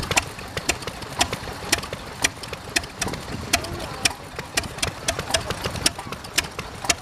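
Stationary engine running slowly, with sharp, fairly regular beats about twice a second.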